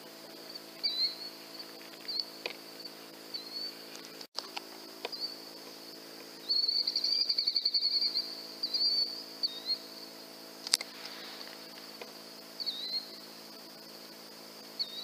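Night insects chirping: a steady high cricket-like drone with short repeated chirps over it, and a louder rapid pulsing trill for about a second and a half around halfway through. A single sharp click comes about two-thirds of the way in.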